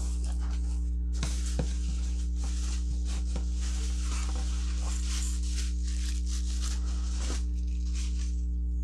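A mailed package being torn open by hand: irregular tearing, crinkling and scattered clicks of wrapping and tape for several seconds, dying away near the end. Under it runs a steady low electrical hum.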